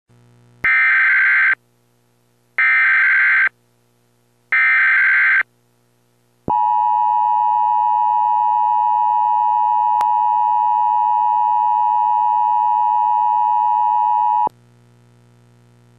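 Emergency Alert System tones: three one-second bursts of digital SAME header data, evenly spaced, then a loud steady attention tone of about eight seconds that cuts off suddenly. Together they signal the start of a National Weather Service severe thunderstorm warning.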